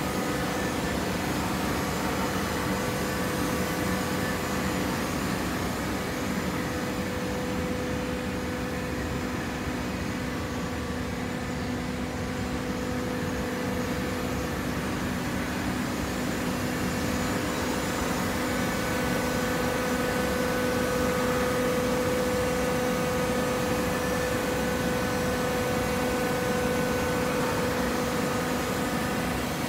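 Horizontal fiber baling press running: a steady machine hum with a constant low tone, growing slightly louder past the middle.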